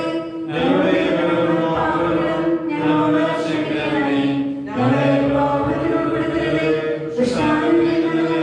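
Liturgical chant, sung in long held phrases with short breaks between them about every two to two and a half seconds.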